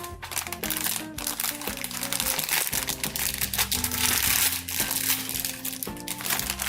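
Plastic packaging of a plush blind box crinkling as it is opened, heaviest in the middle, over background music.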